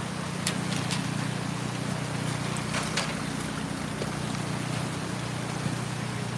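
River water rushing past a stone bridge abutment, with a steady low machine hum under it and a few light clicks in the first three seconds.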